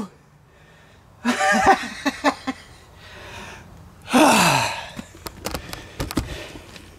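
A man's breathy vocal sounds: a short breathy utterance just over a second in, then a loud sigh-like exhale falling in pitch about four seconds in. A few sharp clicks and knocks follow as the camera is handled.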